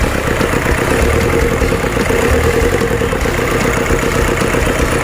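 Toyota Hilux 2KD four-cylinder diesel engine idling steadily.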